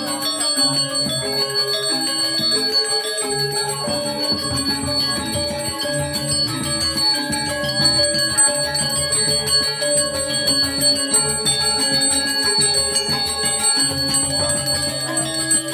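Balinese gamelan music: metallic mallet instruments playing a stepping melody, with a bell ringing steadily over it.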